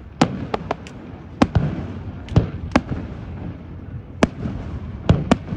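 Aerial firework shells bursting overhead: about ten sharp bangs at uneven intervals, some coming in quick pairs, over a low continuous rumble. The loudest bang comes about three-quarters of the way through.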